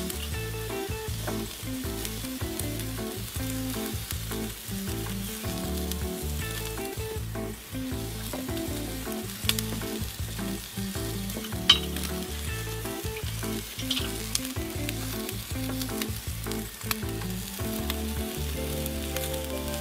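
Rib-eye steaks sizzling on a charcoal grill grate, fat crackling steadily with scattered sharp pops; the loudest pop comes about twelve seconds in.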